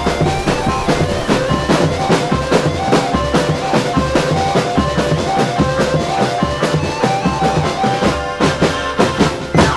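Marching drum band playing a fast, dense rhythm on bass drums and snare drums, with a pitched melody running over the drumming.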